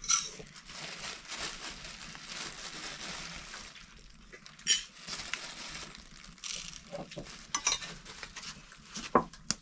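A few sharp clinks of kitchenware over a steady hiss, the loudest just after the start and again about halfway through.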